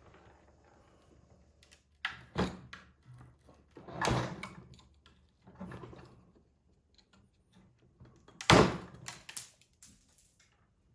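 Hand-tool knocks, scrapes and clicks from prying at components inside a Tesla onboard charger: a few separate knocks, then the loudest one about eight and a half seconds in, followed by a quick run of small clicks.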